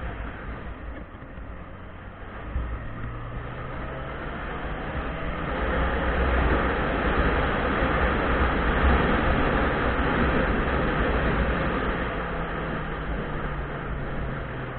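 Motorcycle riding: wind rushing over a helmet-mounted action camera's microphone, with the engine running underneath. The rush gets louder in the middle as the bike picks up speed, then eases near the end.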